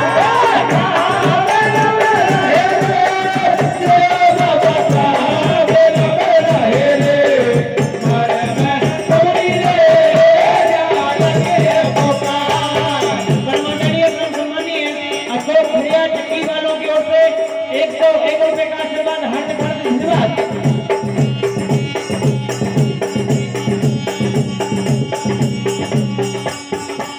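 Live Indian folk devotional music: a harmonium plays a sustained melody over a hand drum and rattling percussion. The low drum drops out for a few seconds midway, then returns.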